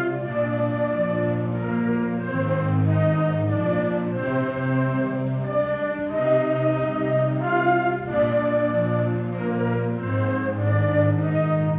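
Middle school concert band playing, with flutes and brass holding full chords over a bass line that change about once a second.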